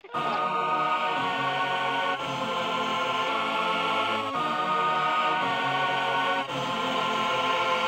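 Music of sustained chords that begins abruptly out of silence and changes chord about every two seconds.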